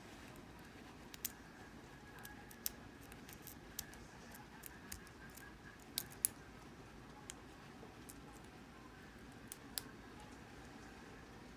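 Lock pick and tension bar working the pin tumblers of a solid brass padlock: irregular light metallic clicks and ticks, with two sharper clicks close together about halfway through.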